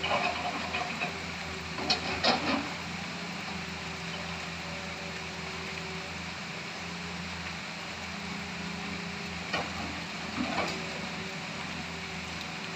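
Hitachi excavator's diesel engine running steadily, with a few sharp knocks and clanks of work, a cluster about two seconds in and another near ten seconds.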